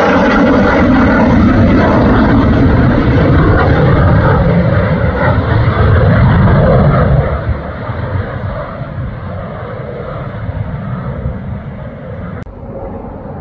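Eurofighter Typhoon on landing approach with its gear down, its twin turbofan jet engines loud as it passes. About seven seconds in the noise drops and keeps fading, its hiss thinning as the jet moves away.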